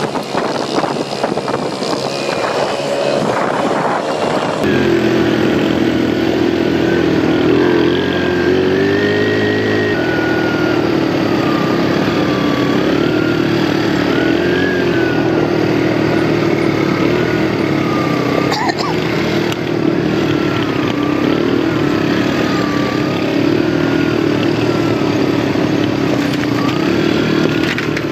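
ATV engine running while being ridden, its pitch rising and falling with the throttle. The sound changes abruptly about four seconds in.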